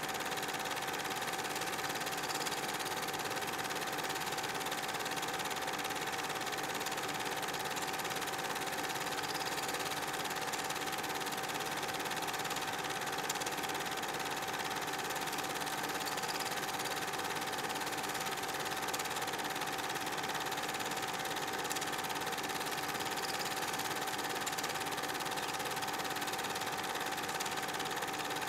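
8 mm film projector running steadily: an even mechanical whirr with a constant tone that does not change through the shots.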